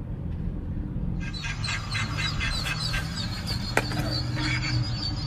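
Ducklings peeping, a rapid run of short, high-pitched calls starting about a second in, over a steady low hum, with one sharp click near the end.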